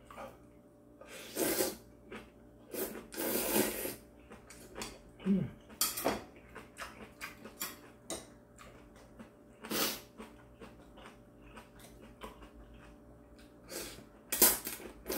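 A man slurping kalguksu, knife-cut wheat noodles in broth, in several short loud slurps with quieter chewing between. The loudest slurp comes near the end.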